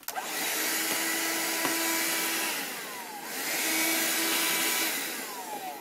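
Shark vacuum cleaner switched on and running with a steady whir. About halfway through it dips and slides down in pitch, then comes back up, and it winds down again near the end.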